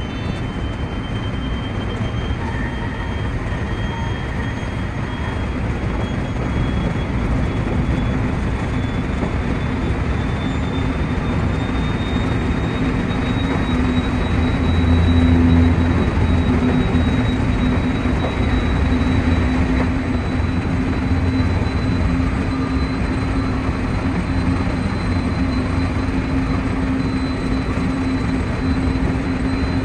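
JR West 223 series 2000 subseries electric train running at speed, heard from the driver's cab: a steady rumble of wheels on rail with a low motor hum and a faint high whine slowly rising in pitch.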